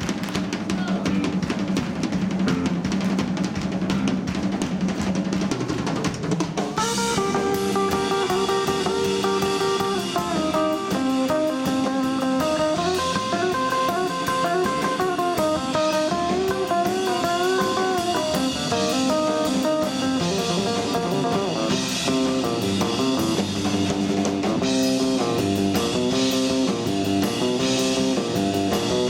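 Live instrumental surf-rock band: a rock drum kit plays with a held low note under it, then electric guitars and bass come in about seven seconds in and play the melody over the drums.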